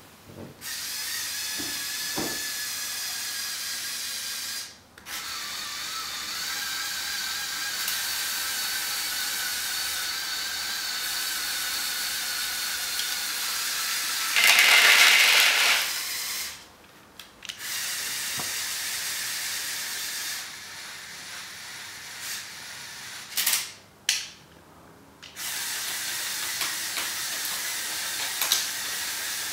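LEGO Technic 8043 excavator's Power Functions electric motors and gears whining steadily as the arm and bucket move, stopping briefly three times. About halfway there is a loud rattling rush as wood pellets tumble out of the bucket into a plastic bowl.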